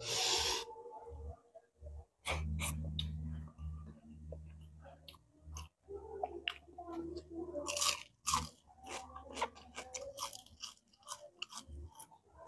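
Close-up chewing and crunching of crispy fried bisugo (threadfin bream) with rice, eaten by hand, with sharp crunches all through. A low steady hum lasts about three seconds early on.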